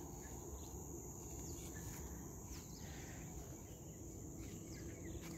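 Faint, steady high-pitched drone of insects in the orchard, unbroken throughout.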